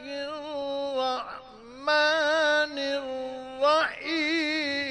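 A male Quran reciter chanting in the ornate mujawwad style, holding long melodic notes with a wavering ornament. He breaks off twice for breath, about a second in and again near the end.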